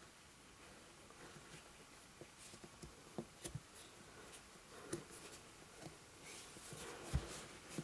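Faint handling sounds of a soft vinyl doll leg being pushed into the doll's body: scattered light clicks and rubbing, with a soft thump near the end.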